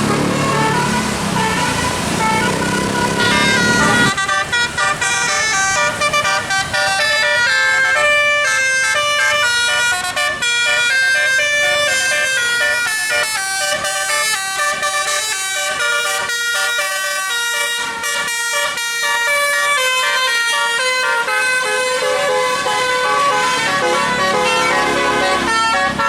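Bus 'telolet' musical air horn playing a quick melody of rapidly changing notes, with bus engine noise under it for the first few seconds.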